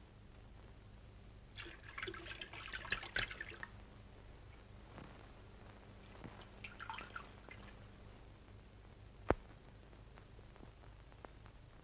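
Milk poured from a jug in two short pours, then a single sharp click about nine seconds in, over the steady hum and hiss of an old film soundtrack.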